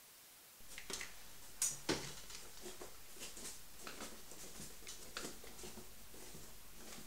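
A low hum with scattered small clicks and taps, starting about half a second in; two sharp clicks close together about a second and a half in are the loudest.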